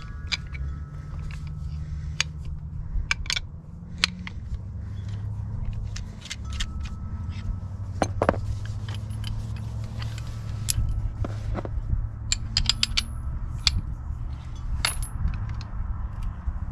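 Steel combination wrenches clinking against each other and against the metal ball-joint ends of an adjustable sway bar link as its nuts are tightened by hand, with irregular sharp metallic clicks throughout. A steady low hum runs underneath.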